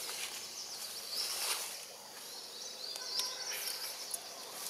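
Outdoor background ambience: a steady hiss with several short, high chirping calls.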